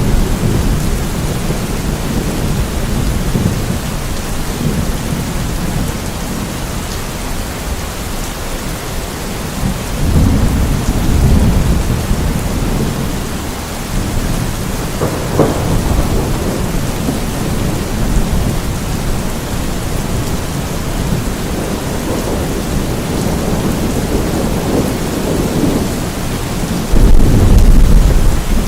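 Steady rain with low rumbles of thunder rolling underneath, swelling about ten seconds in and again near the end.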